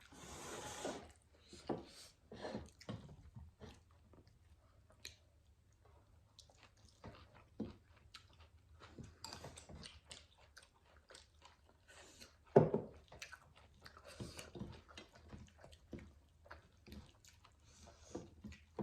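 Close-up chewing and wet mouth sounds of people eating a meal, with irregular short smacks and clicks and one louder knock about twelve and a half seconds in.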